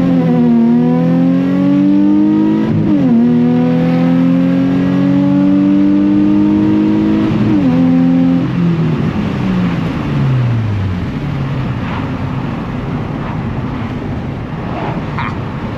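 Nissan 350Z's 3.5-litre V6 at full throttle, revs climbing through two quick upshifts. About eight seconds in the driver lifts off and the revs fall away, leaving road and wind noise.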